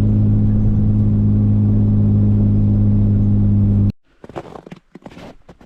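Steady low drone of a vehicle driving at constant speed, heard from inside the cabin, which cuts off abruptly about four seconds in. Faint scattered rustles and crunches follow.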